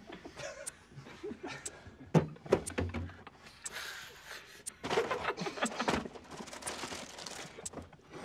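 Knocks and taps of hands and objects on a wooden table, the loudest a couple of seconds in, followed by stifled, breathy laughter and snickering held back under the breath.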